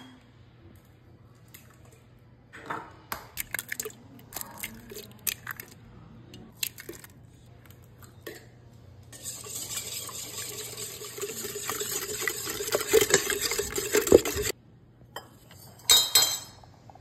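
Eggs being cracked for batter: a string of sharp taps and cracks. Then liquid pours steadily for about five seconds, getting louder, and near the end there are a few metallic clinks of a measuring cup against the mixing bowl.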